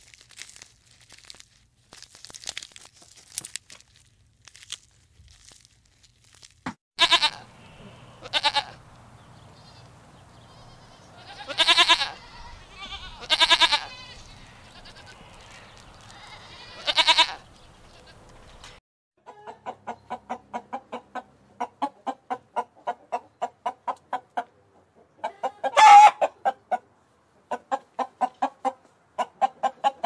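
Faint crackling and rustling for the first few seconds, then young goats bleating: five wavering calls over about ten seconds. After that, fowl cluck in a fast, even series of about three or four clucks a second, with one loud call a few seconds before the end.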